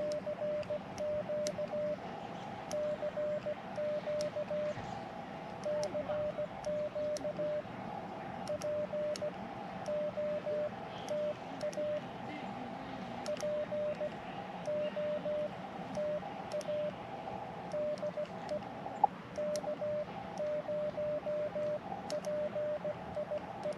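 Morse code being sent with a small CW paddle on a portable ham transceiver: a single steady sidetone keyed on and off in dots and dashes, with faint sharp clicks from the paddle.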